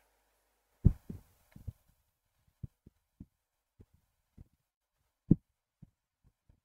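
A dozen or so short, soft low thumps at irregular intervals, with the loudest about a second in and another just past five seconds.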